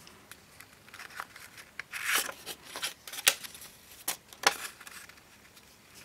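Sheets of origami paper being handled, unfolded and folded back: scattered short rustles and crinkles of paper, the loudest about three seconds in.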